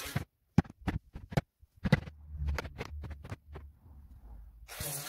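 A series of about a dozen sharp, irregular knocks and clicks, with a low hum under them from about two seconds in.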